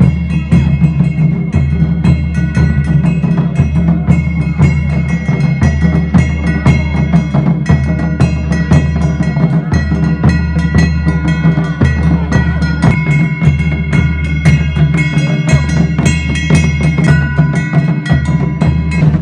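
Folk drumming on barrel drums with ringing brass cymbals: a fast, steady beat of many strokes a second that runs without a break.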